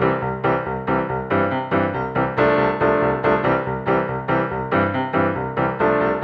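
Background music: a piano or keyboard playing a lively run of chords and notes with a steady beat.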